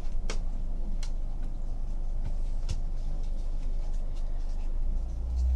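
Trading cards being handled and flipped through by hand: a few light clicks and flicks over a steady low hum.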